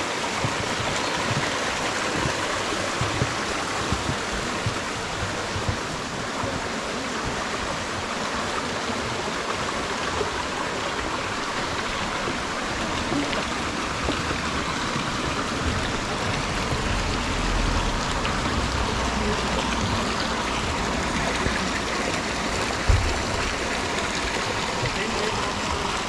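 A snowmelt-fed mountain stream rushing and splashing over mossy rocks in small cascades, a steady even rush. A brief low bump about three-quarters of the way through.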